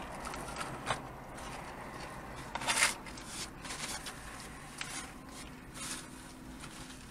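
Paper napkins and food wrappers rustling and crinkling as they are handled, with scattered short crackles; the loudest is about three seconds in.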